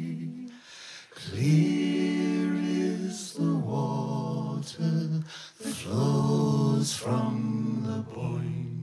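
Several men's and a woman's voices singing a series of held chords in close harmony, largely unaccompanied, each chord a second or two long with short breaks between.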